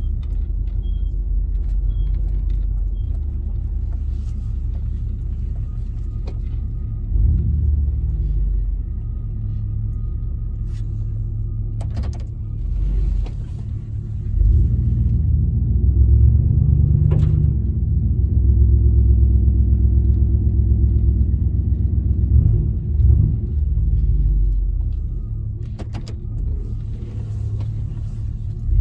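Chevy K1500's small-block 350 V8 running through a Flowmaster Super 10 muffler with no catalytic converters, a deep exhaust rumble heard from inside the cab while driving. It swells louder for several seconds about halfway through, then eases back, with a few sharp knocks along the way.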